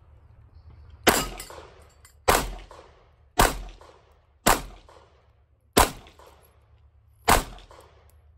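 Six pistol shots from a Glock 43 9mm subcompact, fired one at a time about a second apart, each a sharp crack with a short ringing tail.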